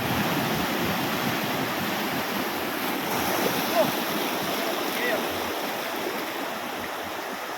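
Sea water rushing and washing steadily over the shore.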